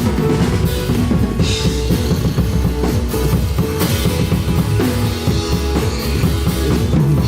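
Drum kit played in a steady rock beat, bass drum and cymbals over rock music with pitched backing.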